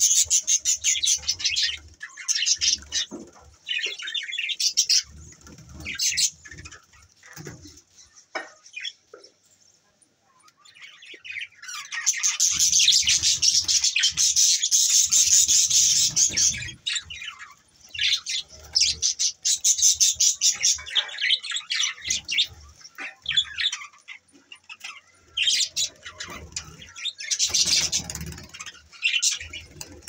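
A flock of budgerigars chirping and chattering in bursts, with a lull about ten seconds in and the busiest, loudest chattering just after it.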